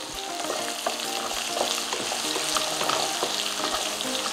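Cubed potatoes, green chillies and curry leaves sizzling in oil in a nonstick pan while a spatula stirs them, with a few light taps. The chillies and curry leaves have just gone in and are frying.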